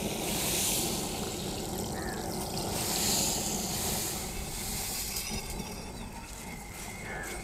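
Granulated sugar being poured into a pan of water for sugar syrup: a hissing trickle that swells and fades a few times.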